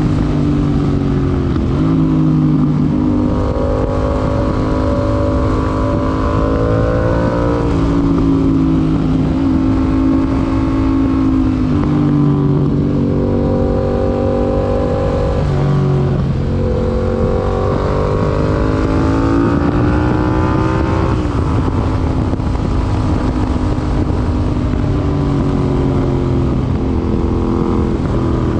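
Yamaha MT-07's 689 cc parallel-twin engine running through an IXIL IXRACE MK2 aftermarket exhaust under way, its pitch climbing under throttle and then dropping back, about five times.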